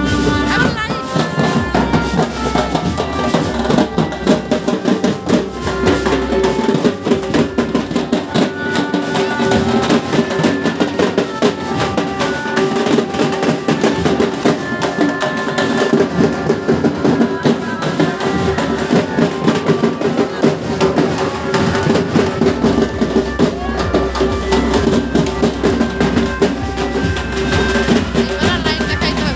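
Loud procession band music played through a loudspeaker system: an electronic keyboard melody over fast, dense drumming, with voices mixed in. A heavy bass comes in strongly about three-quarters of the way through.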